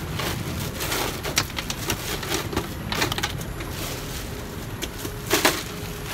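Ice cubes clattering and a plastic bag crinkling as a gloved hand digs into bagged ice in a galley cart drawer: irregular sharp clinks and rustles, loudest about five and a half seconds in, over a steady low hum.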